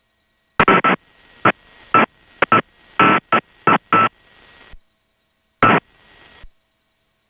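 Aircraft radio on the airport tower frequency: a rapid, irregular string of about a dozen short bursts of static over a few seconds, then one more near the end, with faint hiss between them.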